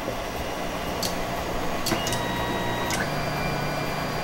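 KINGROON 3D printer running its homing routine: its stepper motors whine as the axes drive toward their home positions. The pitch changes with a small click at about one, two and three seconds in.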